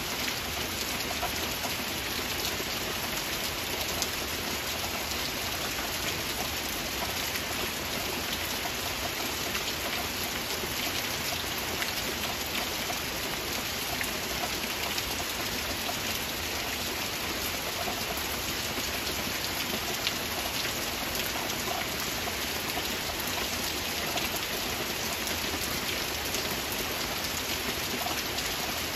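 Heavy rain falling steadily in a forest: a dense, even hiss dotted with countless small drop ticks, unchanging throughout.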